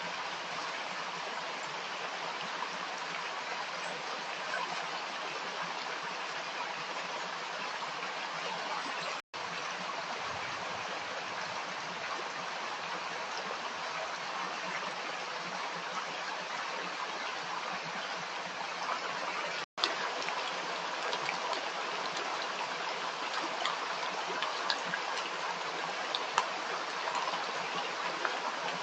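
Running stream water: a steady rush and gurgle with small splashes that grow a little more frequent in the later part. The sound cuts out for an instant twice, about nine and twenty seconds in.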